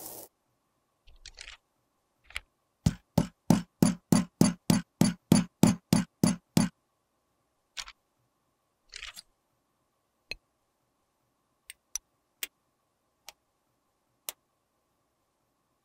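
A quick, even run of about fifteen sharp taps, roughly four a second, from handling hard makeup containers or tools. Then come a few scattered single clicks and one brief scrape.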